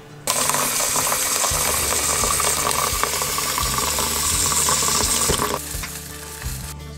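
Tap water running hard into a water filter pitcher in a stainless steel sink, starting suddenly and cutting off about five and a half seconds in. Near the end comes a lighter rattle of cereal flakes poured into a bowl.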